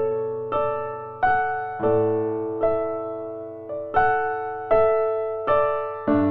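Slow, gentle piano music: notes and chords struck roughly once every 0.7 seconds, each one ringing and fading before the next.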